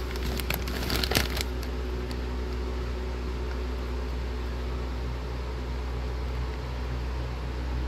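Steady low hum with an even hiss of room background, with a few light clicks in the first second and a half while light malt extract powder is being added to a glass jar on a scale.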